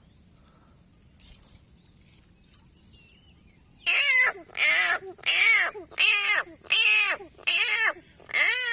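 An animal calling seven times in a row, starting about four seconds in: short, loud calls evenly spaced a little under a second apart, each rising and then falling in pitch.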